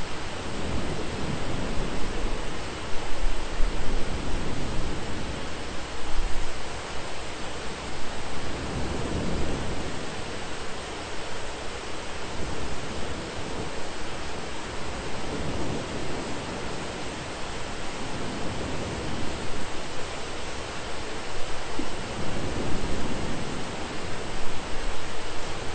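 Steady, dense rain hiss of a thunderstorm, with low rumbles of thunder swelling and fading every few seconds.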